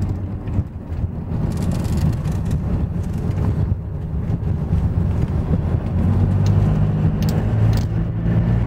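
Jeep Wrangler engine and tyre noise heard from inside the cabin while driving: a steady low drone that dips briefly about a second in and swells a little near the end.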